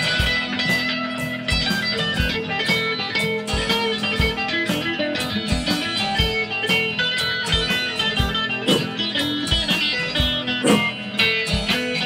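Instrumental break of a blues song: electric guitar playing over bass and drums, with a steady kick-drum beat about twice a second.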